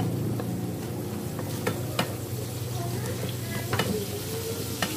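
A spatula stirring fried tofu cubes and minced beef in a sizzling sauce in a nonstick frying pan, with a few sharp taps of the spatula against the pan.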